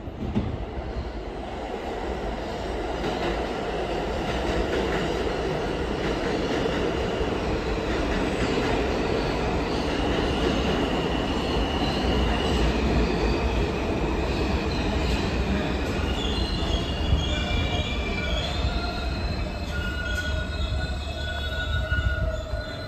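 New York City subway train running through an underground station: a steady deep rumble, with high wheel squeal starting about halfway through and turning into several overlapping squeals near the end.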